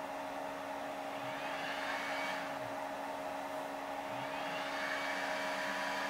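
Cooling fan of an ISDT Q6 Plus smart charger running steadily while it delivers a high charging current of about 12 to 14 A. Two faint whines rise in pitch, about a second in and again about four seconds in.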